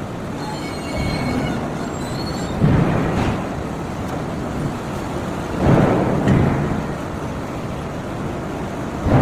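Heavy forging machinery at work during flange ring forging: a steady industrial din broken by deep heavy thuds a few seconds apart, about three of them, the second followed closely by another. Faint high squealing in the first couple of seconds.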